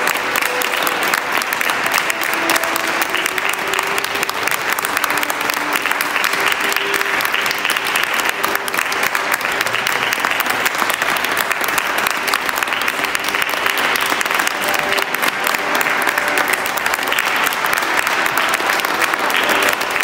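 Sustained applause from a seated audience, many hands clapping steadily without a break, with faint music beneath.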